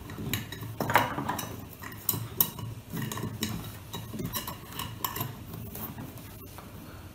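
Irregular small clicks and light rattling as the parts and wires of a light fitting are handled.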